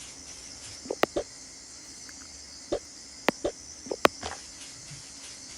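Dishes knocking and clinking while being washed by hand: a handful of separate sharp clicks and short dull knocks over a steady faint hiss.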